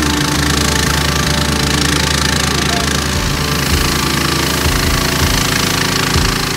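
A small engine runs steadily with a pulsing low rumble under the hiss of a fire hose spraying water onto smouldering brush.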